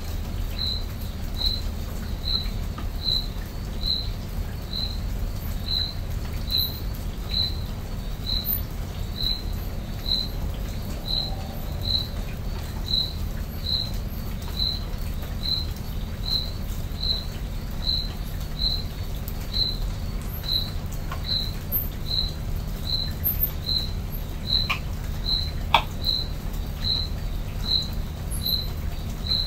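A night insect chirping in a steady, even rhythm, one short high chirp about every three quarters of a second, over a low steady background rumble.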